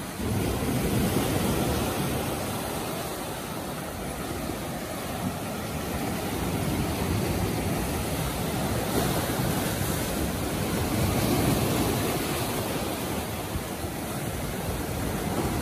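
Sea surf washing on the shore, mixed with wind rushing over the microphone: a steady noise that swells and eases a few times.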